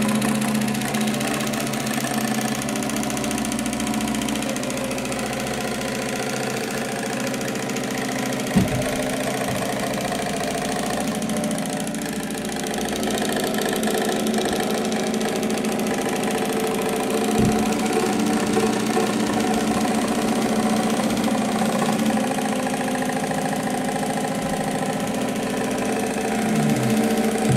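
A steady machine hum made of several pitched tones, with a short thump about eight and a half seconds in and another near seventeen seconds.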